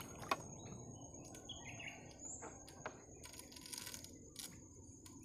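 Quiet river ambience: faint water sloshing around a small boat where a diver has gone under, with a few light taps, the sharpest near the start, over a steady high insect drone.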